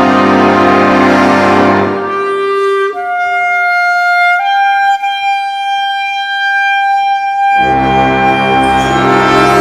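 Clarinet concerto with symphony orchestra: the orchestra plays loudly, then thins out about two seconds in. A solo clarinet holds a high note alone, steps up a little and holds it again, before the full orchestra comes back in loudly near the end.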